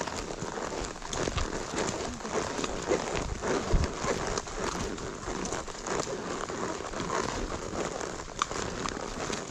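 Horses walking a trail: a steady run of crunching, crackling steps and rustle, with no clear beat.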